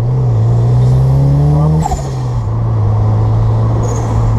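A 1994 Toyota MR2 turbo's turbocharged four-cylinder engine, heard from inside the car, accelerating with the revs climbing steadily. About two seconds in the revs drop at a gear change, and the engine then runs steady at a lower pitch.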